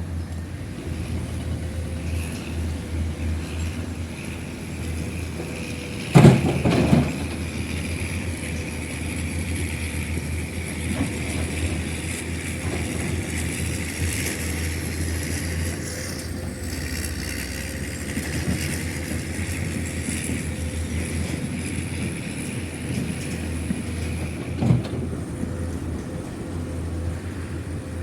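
Heavy construction machinery, an excavator and dump truck, running steadily with a low engine drone and a high whine. A loud clattering impact comes about six seconds in, and a single short knock comes near the end.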